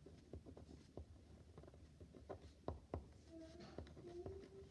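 Pen writing on paper: faint, scattered small taps and scratches of the tip on the page.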